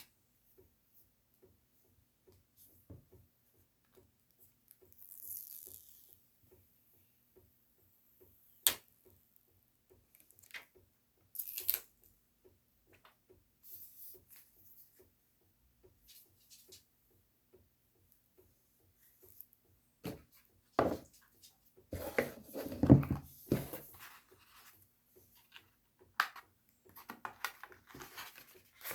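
Intermittent handling noises of a phone unboxing: scattered light taps and clicks and the rustle and tearing of packaging. There is a sharp click about nine seconds in, and a longer, louder stretch of rustling and handling about three-quarters of the way through.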